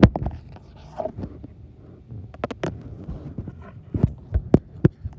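Irregular knocks and low thumps from a handheld tablet being moved and gripped, with leaves brushing against it.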